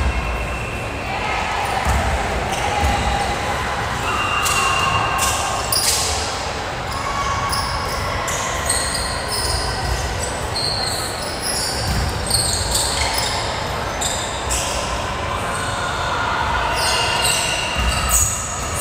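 The echoing hubbub of a large gym: balls thumping on the hardwood floor, repeated sharp knocks, short high squeaks, and voices in the background.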